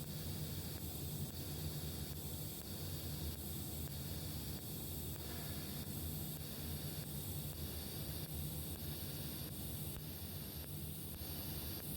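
Welding: a steady hiss over a low hum.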